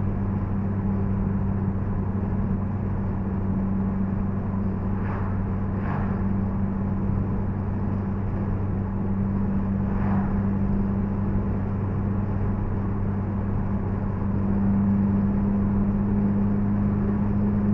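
Honda Civic Si's K20Z3 2.0-litre four-cylinder engine cruising at a steady highway speed, heard from inside the cabin as a steady low drone over tyre and road noise.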